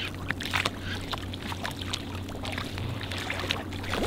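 Water lapping and slapping against a small inflatable boat's hull, with many irregular sharp clicks and taps over a steady low hum.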